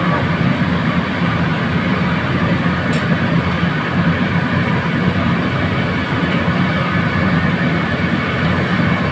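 Steady roar of a commercial wok range: high-output gas burners and the kitchen exhaust hood running continuously, with a faint click about three seconds in.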